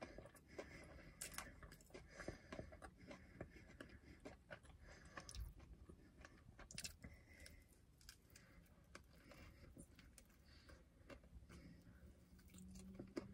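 Faint close-up chewing of saucy fried chicken from a skewer, with scattered small crunchy clicks and a bite near the end.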